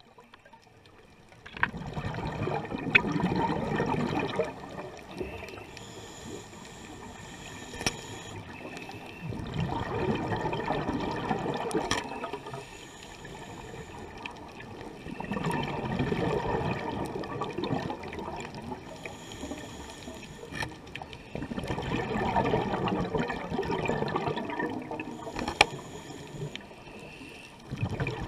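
A scuba diver's open-circuit regulator breathing: a loud burst of exhaled bubbles swells and fades about every six seconds, with a quieter inhalation hiss between. A handful of sharp clicks stand out over the bubbles: a bumphead parrotfish biting and crunching hard coral.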